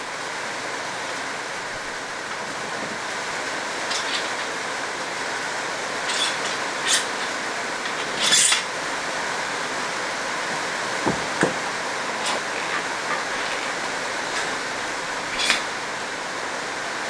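Scattered clicks and clinks of a mountain bike front wheel and its thru-axle being handled and fitted into a suspension fork, about eight in all, the loudest about eight seconds in, over a steady hiss.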